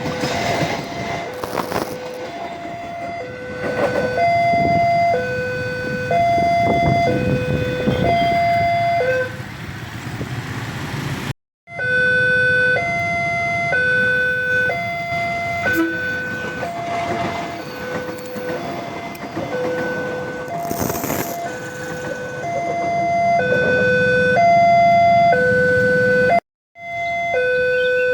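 Railway level-crossing warning alarm sounding: an electronic two-tone signal alternating between a lower and a higher tone about every two-thirds of a second, warning that a train is approaching or passing. A passing train's rumble is under it in the first few seconds, and the alarm cuts out briefly twice.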